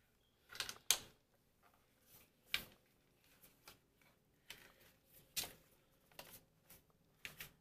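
Handling noise from a flexible-legged gorillapod-style tripod as a camera is fitted onto it: scattered sharp plastic clicks and knocks at irregular intervals, the strongest about a second in.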